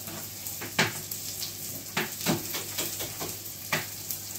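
Vegetables sizzling in a hot pan while a utensil stirs them, knocking sharply against the pan about four times.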